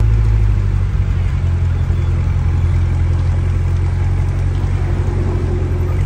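Chevrolet Corvette C8's V8 engine running at low revs: a loud, steady, deep rumble that starts abruptly.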